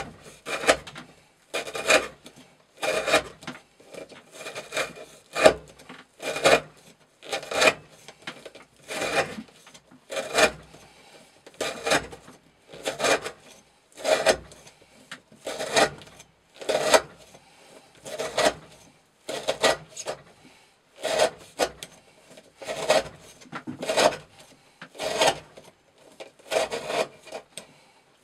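A Chris Reeve Sebenza 21 knife with an S35VN blade and factory 40° V-edge slicing through a 20 mm rope, one cut after another. There are about twenty short cuts, a little over one a second, in an even rhythm.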